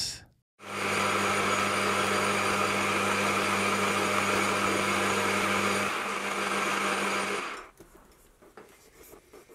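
Metal lathe turning a half-inch mild steel bar down with a carbide insert tool: a steady motor hum under the hiss of the cut. It stops about seven and a half seconds in.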